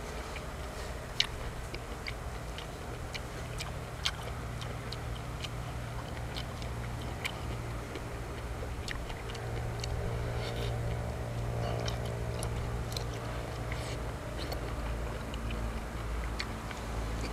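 A person chewing food close to the microphone, with scattered wet mouth clicks and two sharper clicks about one and four seconds in. A steady low hum runs underneath.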